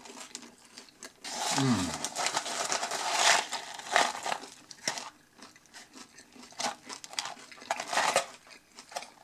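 Paper fries carton rustling and crinkling as curly fries are picked out of it by hand: a dense rustle lasting a couple of seconds starting about a second in, then scattered shorter crinkles and taps.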